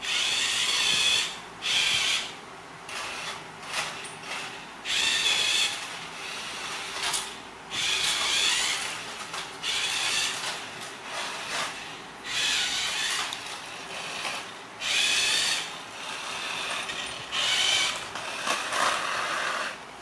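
Toy remote-control car's small electric motor and gears whirring in about ten short spurts, starting and stopping every second or two.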